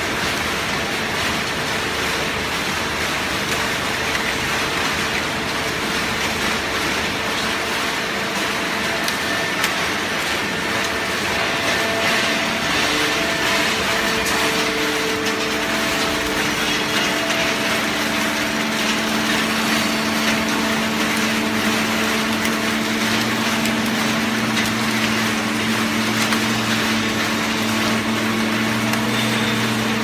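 Automatic horizontal baler running while compressing waste into bales: a steady mechanical din with a steady hum, joined by lower hums about halfway through.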